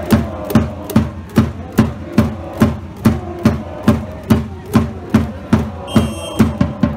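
Large drum beaten in a steady rhythm, a little over two strokes a second, each stroke booming and falling in pitch. A short high whistle tone sounds about six seconds in.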